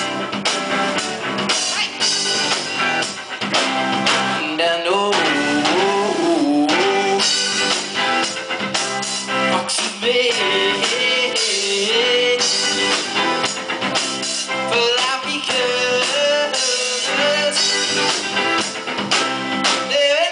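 Indie rock band playing live: electric guitars, bass and drum kit, with a male lead voice singing over them.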